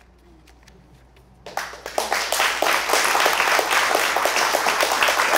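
A short hush, then audience applause breaks out about a second and a half in and swells into steady clapping.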